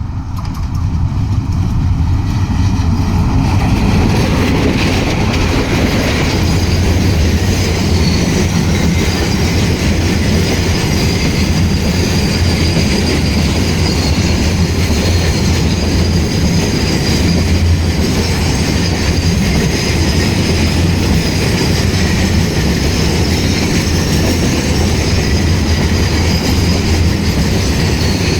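Freight train of rail tank wagons rolling past at close range, with a steady clatter of wheels on the track and a thin high wheel squeal. The sound builds over the first few seconds and then stays steady.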